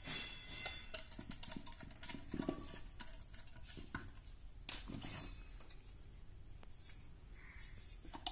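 Screwdriver and plastic parts of a moulded-case circuit breaker being handled: light clicks, taps and scrapes, with a short squeaky scrape at the start and another about five seconds in.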